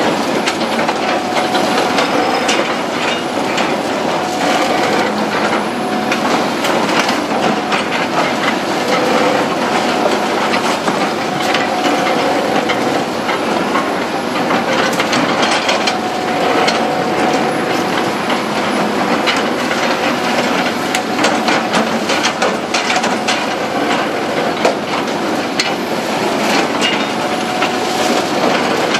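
Several Hitachi Zaxis hydraulic excavators working a pile of demolition rubble: diesel engines running with a faint hum, under a continual clatter and crunching of concrete debris being broken and moved.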